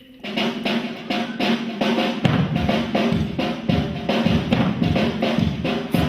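Percussion ensemble of hand-played drums starting up and playing a quick, steady rhythm, with deep bass drums joining about two seconds in.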